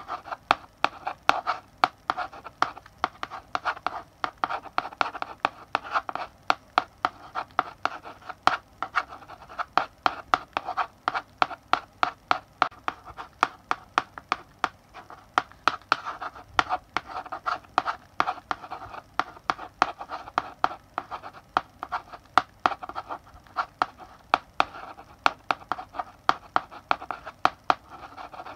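Chalk writing on a blackboard: a steady run of quick taps and short scratching strokes, several a second, as letters are written.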